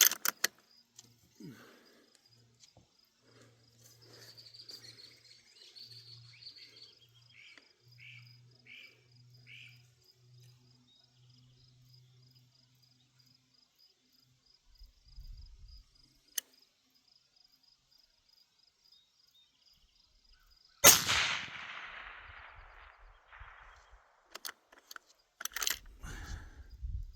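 A Barrett MRAD rifle fires a single shot about three-quarters of the way in: a sharp report with a tail that fades over a few seconds. Before it, insects buzz steadily and a bird chirps a few times, and a few sharp clicks follow near the end.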